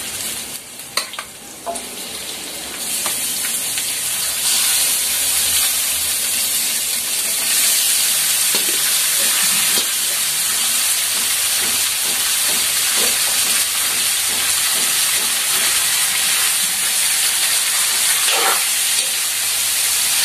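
Soy-and-calamansi-marinated cubed pork sizzling in a hot wok of sautéed onion as it is tipped in from a metal bowl, with a few metal clinks in the first two seconds. The sizzle swells after about three to four seconds and holds steady while the meat is stirred, with scattered knocks of the spatula on the wok.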